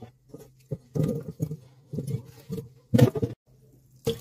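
Raw potato chunks scraped with a knife off a wooden cutting board into a stainless steel pot: a run of uneven knocks and clatters, about five clusters over three seconds. Water starts pouring into the pot right at the end.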